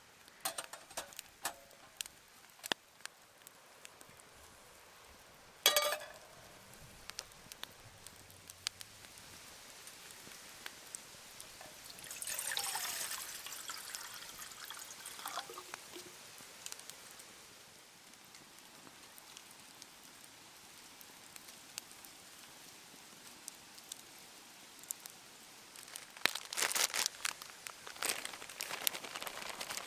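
Liquid being poured for a few seconds, about twelve seconds in, amid scattered small clicks and knocks. A sharp ringing clink comes about six seconds in, and crinkling like a plastic wrapper starts near the end.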